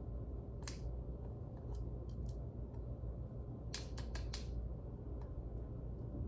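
Sharp metallic clicks from hand-working a brake assembly to free an old brake pad: one click, then a quick run of four about three seconds later, over a steady low rumble.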